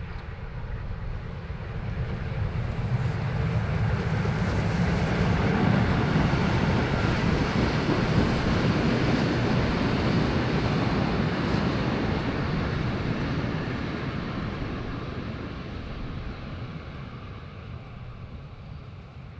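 Steam locomotive hauling passenger coaches passing by on the track: the sound of the running engine and the wheels on the rails swells, is loudest about halfway through, then fades as the train moves away.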